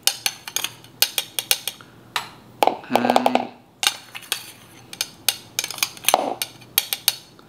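Metal spoon clinking and scraping against a small glass measuring cup while spoonfuls of instant coffee powder are scooped out: a string of sharp, irregular clicks. A brief hummed voice sound comes about three seconds in.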